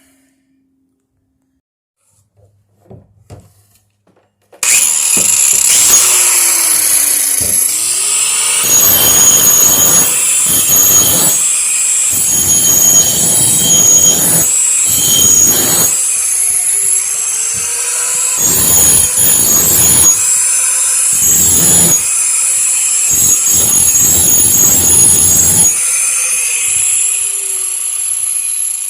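Electric grinder with a coarse wheel running and grinding steel, sharpening the edge of a chopping blade. It starts suddenly about four and a half seconds in after a few faint knocks, then comes in repeated louder passes as the blade is pressed to the wheel, with the motor's hum dipping and recovering.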